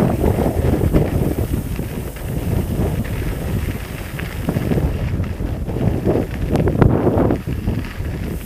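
Wind buffeting the microphone: a loud, gusty low rumble that swells and falls throughout.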